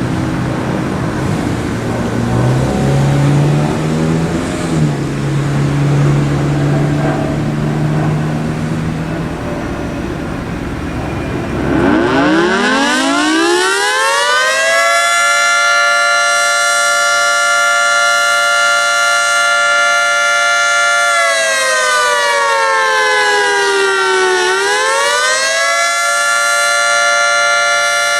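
Federal Signal 3T22 three-tone outdoor warning siren winding up about twelve seconds in, its chord gliding up to a steady pitch. Near the end it sags in pitch for a few seconds, then climbs back and holds.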